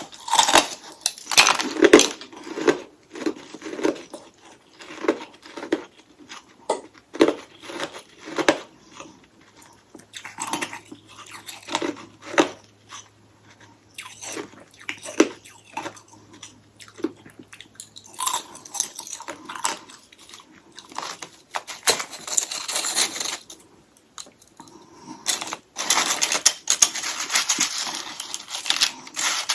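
A person biting into and chewing hollow ice sticks coated in freezer frost, with crisp crunches in uneven runs and softer chewing between them; the crunching is heaviest near the start and again near the end.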